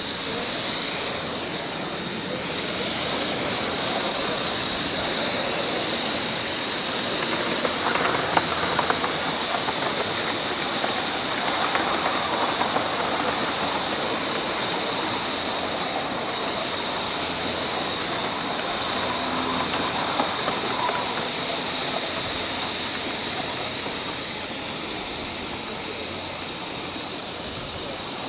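Coal-fired Gauge 3 live-steam model of an LNER Ivatt Atlantic locomotive running with its train: a steady hiss and rush of steam, with a steady high tone over it and a few light clicks about eight and twelve seconds in.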